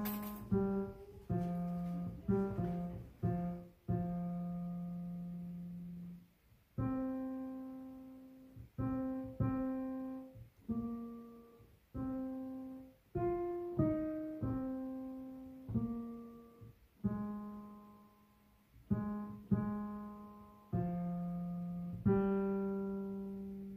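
Background music: a slow piano melody of single struck notes and a few chords, each left to ring and fade.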